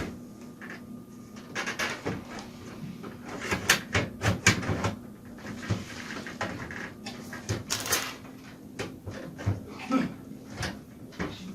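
Irregular clicks and knocks, as of things being handled, over a faint steady hum.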